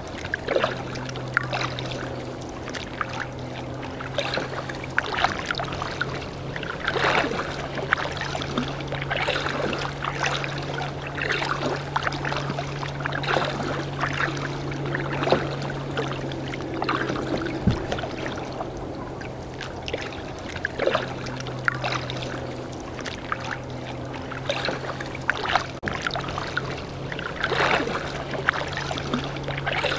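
Kayak paddle strokes: the blades dip and splash in the water every second or two, with water dripping from them. A steady low hum runs underneath.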